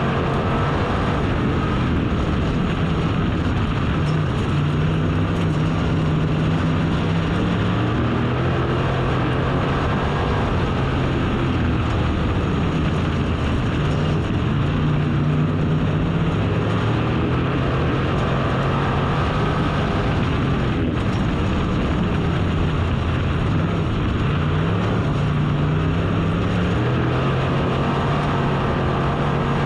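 Race car engine at racing speed, climbing in pitch as it is driven hard, then dropping back when it backs off, over and over in a repeating cycle of a few seconds, like a car lapping an oval track.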